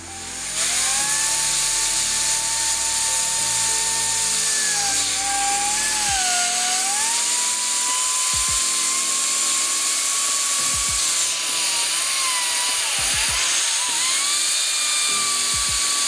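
Nitecore BB21 battery-powered electric air blower running flat out into an anemometer's propeller: a steady rush of air with a high whine. It spins up within the first half second, and the whine's pitch dips and wavers a few times as the aim shifts.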